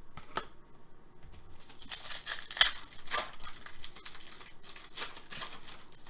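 Foil trading-card pack wrapper crinkling and tearing as it is opened, in a few short rustling bursts, with a few light clicks as the cards are handled.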